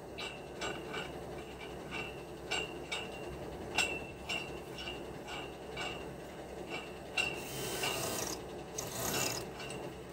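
Hand work on steel concrete formwork: a run of light metallic clicks or taps, two to three a second, each with a brief ring. Near the end come two bursts of hissing, scraping noise.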